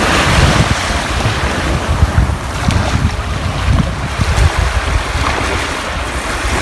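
Heavy wind buffeting on the microphone in irregular gusts over a steady rush of water.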